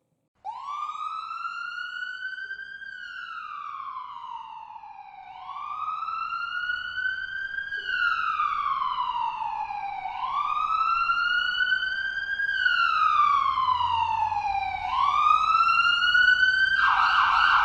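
Wailing siren, its pitch rising and falling in slow sweeps about five seconds apart, growing louder; a harsher, buzzier tone joins near the end.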